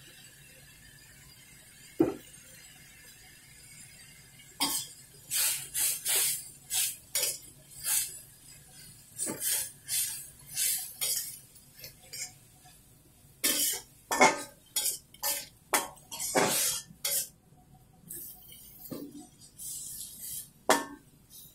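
Metal spatula scraping and clinking against a metal wok as chopped greens are stir-fried, in quick repeated strokes, two or three a second, that begin a few seconds in after a single tap and pause briefly near the end.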